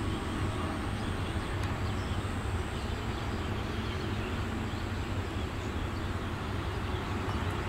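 Meter-gauge diesel locomotive engine running as the train approaches: a steady, even low hum.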